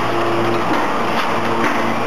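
Automatic square-bottom bag making machine (SY-HD38) running at production speed: a steady mechanical din with a sharp clack about twice a second, over a low hum.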